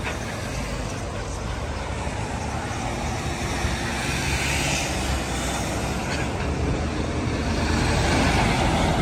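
Road traffic: vehicles passing over a steady low engine rumble, swelling as they go by about halfway through and again near the end.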